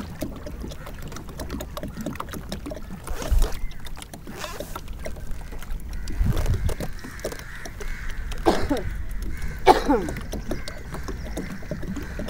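Kayak moving on the sea: water lapping and splashing against the hull with scattered small knocks. Two short falling-pitch cries stand out, about eight and a half and ten seconds in.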